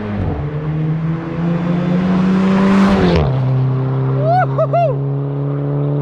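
Volkswagen Golf 6 GTI with a titanium aftermarket exhaust driving past. Its four-cylinder turbo engine note builds as the car approaches, peaks about three seconds in, then drops in pitch as it goes by and carries on at a steady lower note. About a second later come three short, high-pitched calls, each rising and falling.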